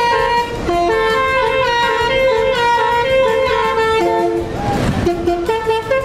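Basuri telolet horn on a car playing a melody in clear stepped notes. A brief rush of noise comes about four and a half seconds in.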